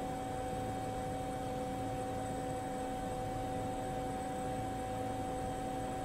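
A steady hum of a few fixed tones over an even hiss, with no rise or fall; no revving rally-car engine is heard.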